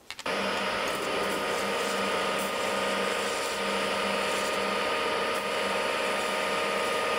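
Metal lathe running at steady speed, its chuck spinning a socket that is being turned down. It starts about a third of a second in as a steady motor hum with a steady whine over it.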